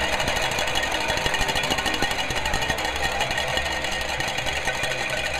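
A stadium crowd ringing hundreds of cowbells at once: a dense, steady, rapid metallic clanging over general crowd noise.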